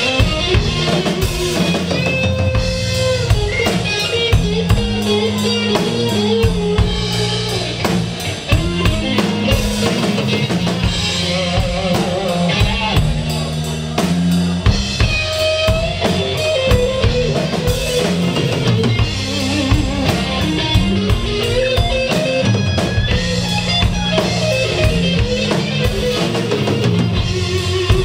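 Live band playing: electric guitar lead lines with notes that glide up and down, over a drum kit and bass guitar with a steady beat.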